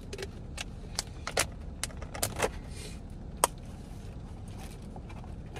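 Scattered sharp crackles and clicks of a plastic water bottle being handled and drunk from, then aluminium foil rustling as food is picked at, the loudest crack a little over three seconds in. A steady low rumble runs underneath.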